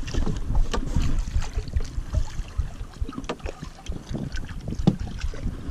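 Wind buffeting the microphone on an open boat at sea, with many irregular short clicks and knocks over it.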